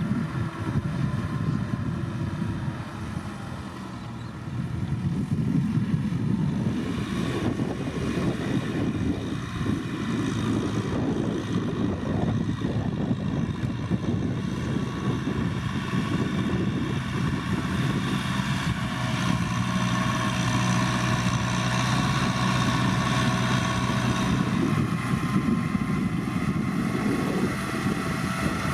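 Kubota M6040SU tractor's diesel engine running steadily under load while ploughing, dipping a little about four seconds in and picking up again just after.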